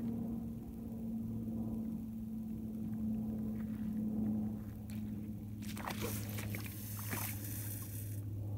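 Daiwa Seagate 35 baitcasting reel's spool whirring as line pays out on a long cast, starting about six seconds in and cutting off sharply about two seconds later; the cast ends in a backlash. A steady low hum runs underneath.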